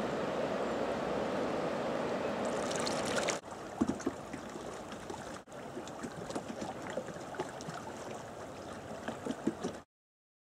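Flowing river water: a steady rushing hiss from broken water, then after a cut a quieter flow with small splashes and ticks. The sound stops abruptly near the end.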